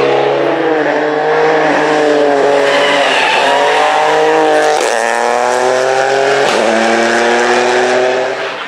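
Rally car engine working hard on a tarmac stage: its note climbs, then breaks at a gear change several times over, and drops away near the end.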